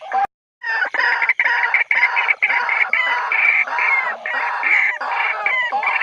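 White-breasted waterhen territorial calling: a dense, continuous run of harsh, repeated calls, cut off completely for a moment about a third of a second in before carrying on.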